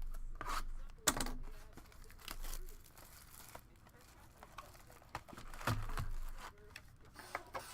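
Trading card packs being handled: wrapper crinkling and tearing, with cards rustling and sliding, in a string of short irregular rustles and clicks.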